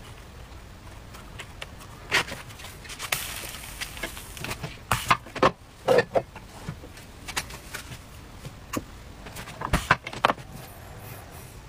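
Irregular knocks and clacks from handling an electric dip-style crepe maker and its batter dish, as the crepe maker is turned over, dipped and set back down. The loudest knocks come about halfway through and again near the end.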